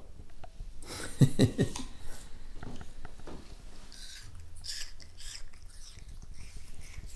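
A young child biting and chewing a piece of raw apple, with crisp crunches. A short voice-like sound is the loudest moment, about a second in.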